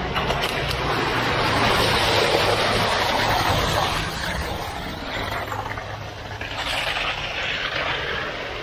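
Concrete pump truck running steadily, its engine drone under the rushing noise of wet concrete coming out of the end hose onto the slab.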